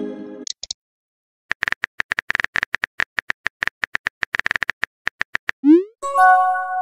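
Rapid electronic keyboard clicks of a texting app while a message is typed, for about four seconds after a brief fading chime at the start. Near the end a quick rising whoosh as the message is sent, then a short multi-tone chime.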